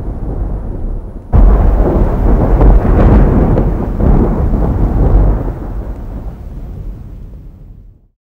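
Thunder: a rumble, then a sudden loud clap about a second in that rolls on as a deep rumble and slowly dies away near the end.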